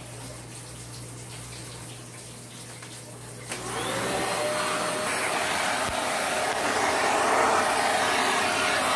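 Upright vacuum cleaner switched on with a click about three and a half seconds in. Its motor whines up in pitch, then runs loudly and steadily as the hose wand sucks over carpeted stairs.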